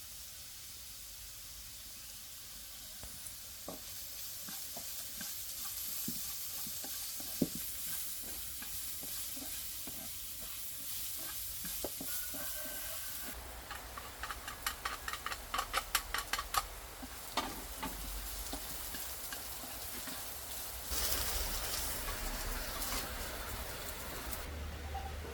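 Food sizzling as it fries in a pan, with a run of quick clicks and scrapes from a utensil stirring it about halfway through.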